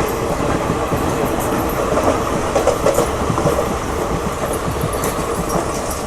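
Train running at speed on the track: a steady rumble of wheels on rails with rapid clicking of the wheels over rail joints, easing slightly near the end.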